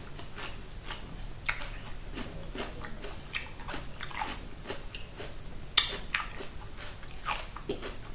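Close-up chewing of raw cucumber with honey: a run of small wet crunches and mouth clicks, with one sharper, louder bite a little under six seconds in.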